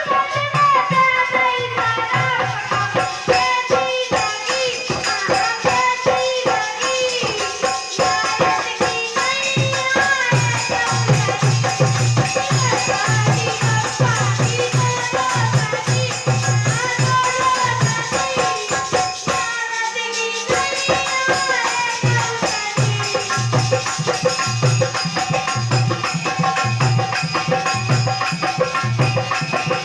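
A girl singing a melody over a steady drum beat and shaken percussion, with a brief break in the music about twenty seconds in.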